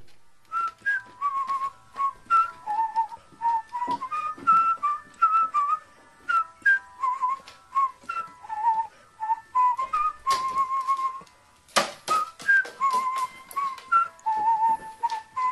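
A whistled, bouncy melody of short notes, some with little trills and upswoops, with crisp clicks and a couple of louder crackles between the notes.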